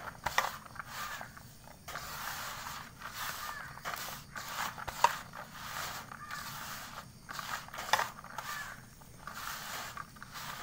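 A hand mixing and squeezing grated tapioca and carrot with rice flour in a plastic bowl: soft, irregular rustling and scraping, with a few sharper clicks.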